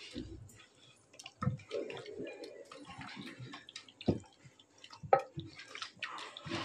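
A hand squishing and turning chicken pieces in a thick curd-and-spice marinade in a metal pot: irregular wet squelches, with a few sharper knocks against the pot, the loudest about five seconds in.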